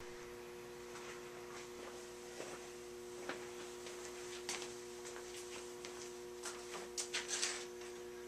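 Steady electrical hum in a small room, made of a few constant low tones, with faint scattered clicks and knocks of a person moving about, a quick run of them about seven seconds in.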